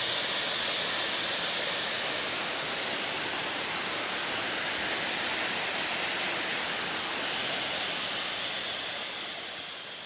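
Waterfall rushing: a steady, loud roar of falling water that begins to fade near the end.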